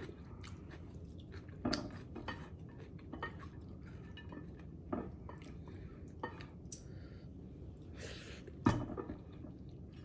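Scattered light clinks and knocks of dishes and cutlery, a handful of separate taps with the loudest about three-quarters of the way through.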